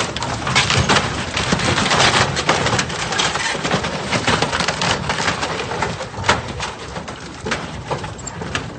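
A wooden dock cracking and splintering under a motor yacht's hull: a dense, irregular run of sharp cracks and snaps, over a steady low rumble.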